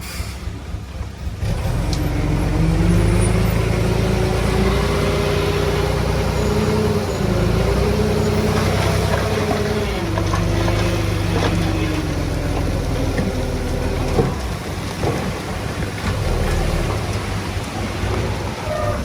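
Heavy diesel machinery running under load. A whine joins the engine about a second and a half in, rises and wavers, then fades out around thirteen seconds. A single knock comes near fourteen seconds.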